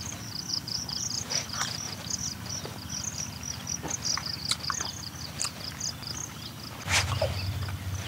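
Insects chirping in a steady fast pulsed pattern, with scattered light clicks and knocks over it and a sharper knock about seven seconds in.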